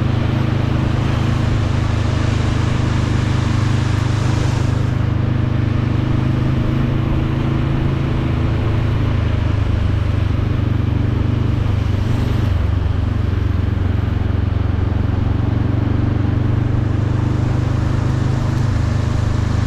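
Motorcycle engine running at a steady pace while riding, under a steady hiss that thins about five seconds in.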